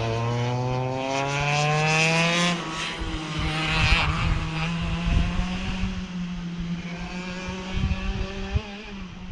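Go-kart engine running at speed, its pitch rising over the first two or three seconds as the kart accelerates, then holding steady and fading as it moves away.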